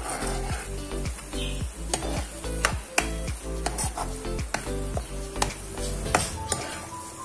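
A spoon stirring a vegetable stuffing in a non-stick frying pan, with repeated sharp scrapes and knocks against the pan over a light sizzle as the added water cooks off.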